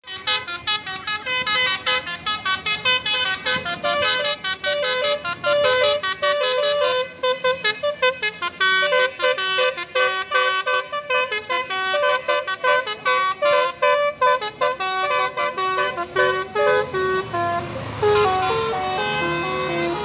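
Bus's basuri telolet multi-tone horn playing a fast melody, its short notes stepping up and down several times a second, starting suddenly and going on without a break.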